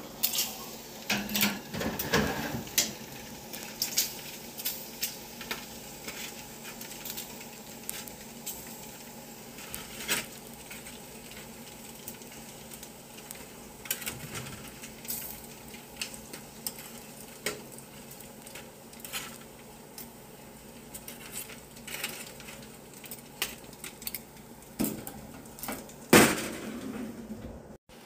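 Metal tongs clicking and scraping on a foil-lined baking sheet as bacon strips are turned on an open oven rack, over faint sizzling of the bacon. One louder clack comes near the end.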